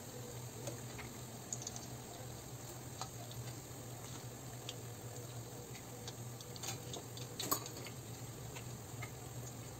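Hot oil sizzling with small scattered crackles and pops as coils of bochnikha dough deep-fry, with one sharper click about seven and a half seconds in.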